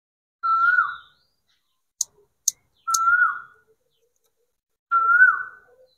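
A bird calling three times, about two seconds apart; each call is a short steady whistle that flicks up and drops at the end. Between the first and second calls come three sharp clicks.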